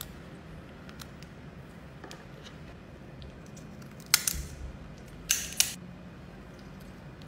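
Cooked crab shell being cracked and snapped apart by hand: two sharp crackling breaks about a second apart a little past the middle, with faint small clicks in between.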